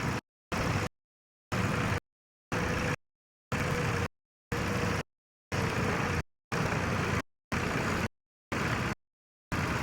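Tractor engine running, with outdoor noise, heard in short pieces about half a second long. Between them the sound drops to dead silence about once a second, a regular dropout in the recording.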